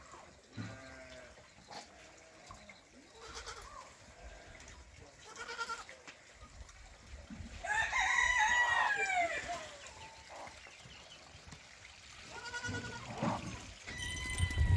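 Rooster crowing once, loudest about eight seconds in, among quieter clucking and farm-animal calls.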